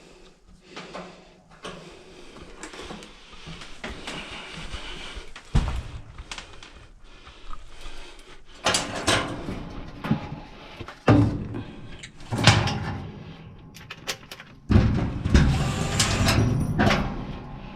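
Knocks, clunks and scraping from dryer parts and panels being handled and fitted during a repair. The sounds come in irregular bursts that get louder in the second half, with a long run of clattering near the end.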